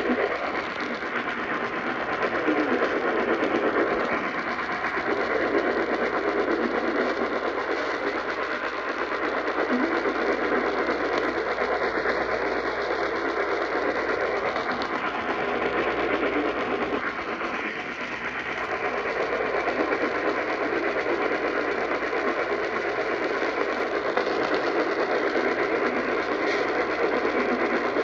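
Radio reception heavy with static: a dense, steady hiss, with a faint steady tone near 1 kHz running through it.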